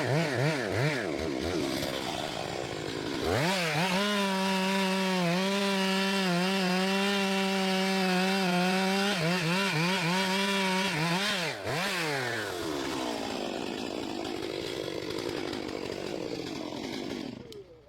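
Two-stroke chainsaw: throttle blipped up and down, then held at high revs for about seven seconds while cutting wood, then released with a couple more short revs before dropping back and fading out near the end.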